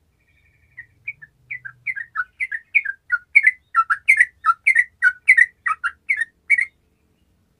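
Yellow-vented bulbul (trucukan) singing a long, rapid, bubbling phrase of short notes that alternate between higher and lower pitches. It starts softly just under a second in, builds to full strength, and breaks off about a second before the end.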